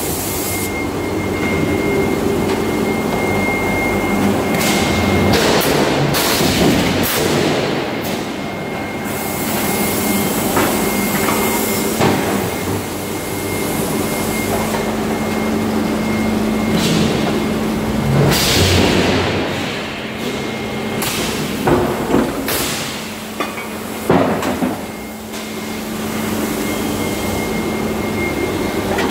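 Forge shop machinery running steadily, with a hum and a thin high whine under a loud din, broken every few seconds by heavy metal clanks and bangs from the hot forging of steel track links.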